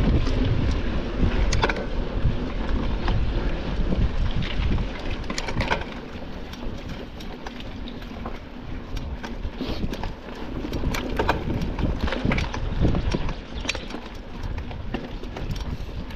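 Mountain bike ridden in a cross-country marathon over rough ground: wind buffeting the microphone and tyre noise, with scattered rattling clicks from the bike. The wind rumble is heaviest in the first six seconds, then eases.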